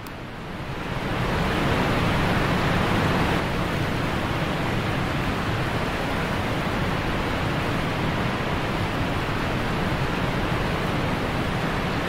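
Steady rush of falling water, fading in over the first second or so and then holding even.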